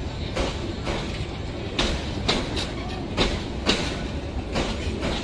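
Bangladesh Railway intercity passenger coaches rolling past, their wheels clacking over rail joints in pairs about half a second apart, a pair roughly every second and a half, over a steady low rumble.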